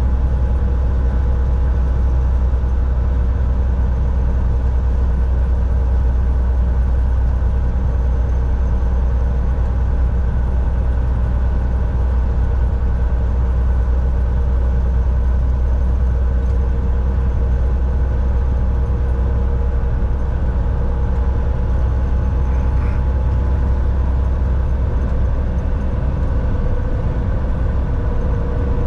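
Volvo VNL 760 semi-truck driving at a steady speed: an even, loud drone of engine and road noise, with a deep rumble and a steady hum over it.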